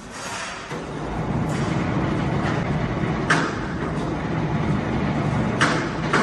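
Heavy sawmill machinery running with a steady low rumble, punctuated by sharp clanks: one about three seconds in and two close together near the end.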